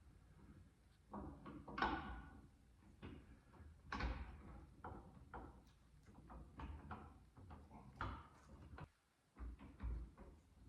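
Steel steering-shaft parts of a 1925 John Deere Spoker D (worm gear, washers and bearing) knocking, clinking and scraping in an irregular series as the shaft is worked into the steering housing.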